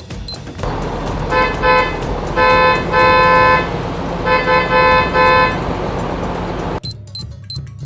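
Vehicle horn honking over a steady engine rumble: two short toots, two long blasts, then a quick run of short toots. The engine and horn cut off abruptly near the end.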